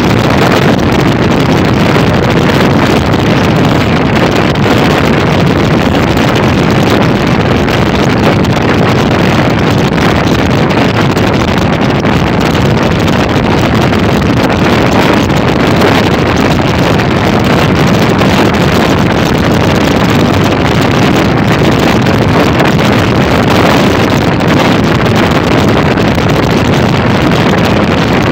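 Motorcycle running steadily at road speed, with wind rushing over the microphone.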